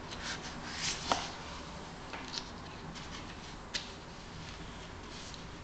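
Paper rustling and soft handling knocks as a hardcover picture book is moved and its pages turned, with a sharp tick about a second in and a few lighter ticks after.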